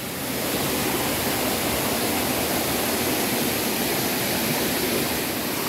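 Shallow rocky stream running and splashing over stones close to the microphone, a steady rushing water noise.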